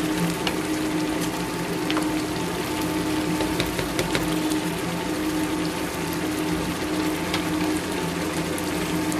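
Fish simmering in a salted black bean and tomato sauce in a pan, the liquid bubbling with many small irregular pops over a steady hum.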